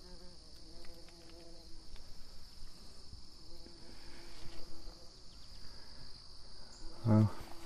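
Bees buzzing among pale touch-me-not flowers, a hum that swells and fades as they fly in and out, over a steady high-pitched insect drone. A short louder sound comes about seven seconds in.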